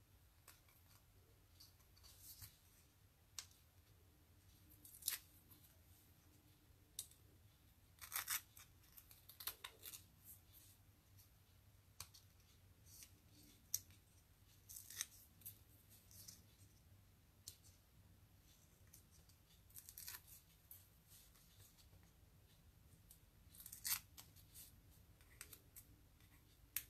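Faint, irregular crackles and rustles of paper and foam mounting tape being handled, as the release paper is peeled off small foam tape pads.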